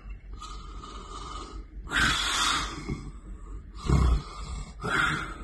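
A person snoring: a series of loud, rasping snores, the longest about two seconds in and shorter ones near the end.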